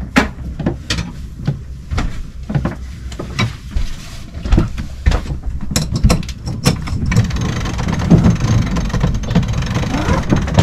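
Sailboat sheet winch clicking in short runs, about twice a second, as a sheet is cranked in, over a low wind rumble. About seven seconds in the clicking stops and a steady rush of wind and water takes over.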